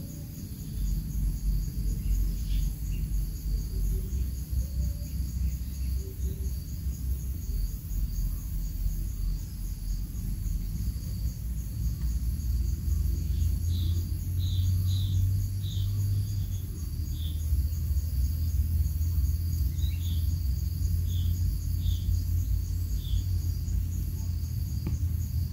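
Insects trilling steadily in several high pitches over a steady low rumble. Two runs of short, high chirps come about halfway through and again a few seconds later.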